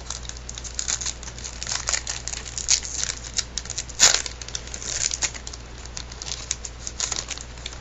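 Baseball card pack wrapper being crinkled and cards being handled and shuffled, a run of small crackles and clicks with one sharper snap about four seconds in.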